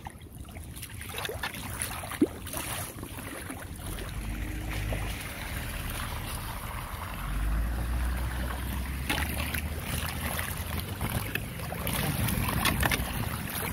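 Street floodwater draining into a just-unclogged storm drain, a steady rush of running water, with wind buffeting the microphone as a low rumble that grows heavier about four seconds in.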